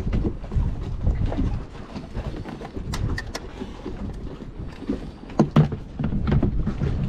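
Low wind rumble on the microphone, with a series of sharp plastic clicks and knocks as a rocker switch is pressed into a carbon-fibre helm panel and a chartplotter display is handled. The loudest knocks come about five and a half seconds in.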